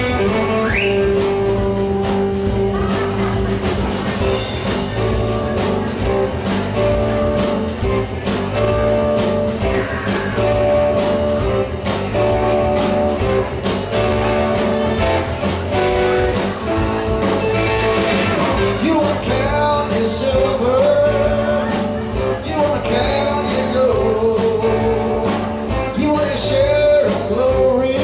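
Live rock band playing: electric guitar, bass guitar and drum kit keeping a steady beat, with singing in parts.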